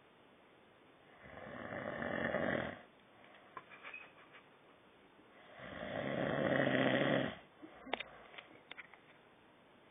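A sleeping person snoring: two long, rasping snores, about four seconds apart, each building up then stopping, with a third starting at the very end.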